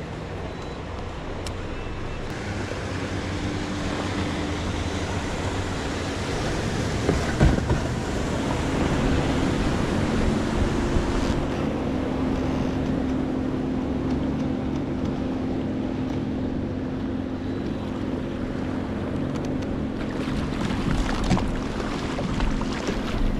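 Wind on the microphone and water rushing past a moving kayak's hull, building over the first several seconds. A steady low hum joins from about eight seconds in, and there is a single knock a little before that.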